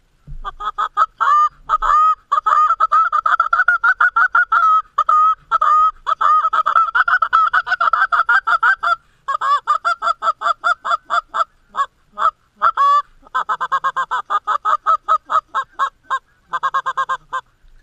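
Canada goose honks and clucks, loud, in fast runs of short notes with brief breaks about nine, twelve and sixteen seconds in.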